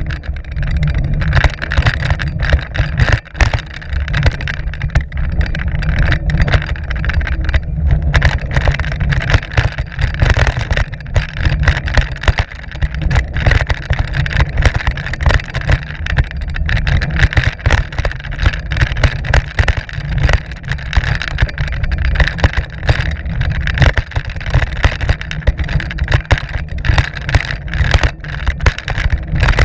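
Mountain bike riding fast down a rough dirt trail, heard from a camera mounted on the bike: a constant low rumble of tyres on dirt with frequent sharp rattles and knocks as the bike goes over bumps.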